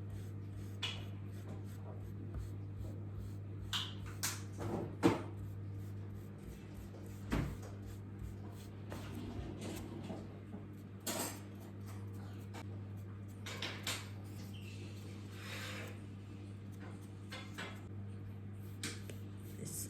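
Scattered light knocks, clicks and a few brief rubbing sounds of small objects and a wooden trim piece being handled, over a steady low hum.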